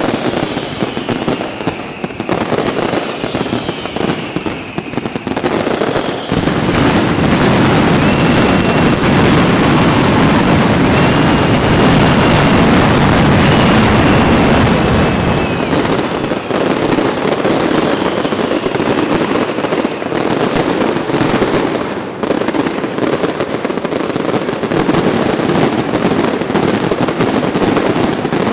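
Fireworks display by Pirotecnia Alto Palancia: a dense run of bangs and crackling with whistling shells gliding in pitch. About six seconds in it builds into a heavier, almost continuous barrage, which eases a little after about sixteen seconds.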